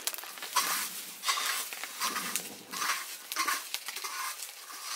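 Irregular scraping, rubbing and crackling as a whole chicken is singed over a wood fire and its charred feathers are rubbed off, in short uneven bursts about every half second.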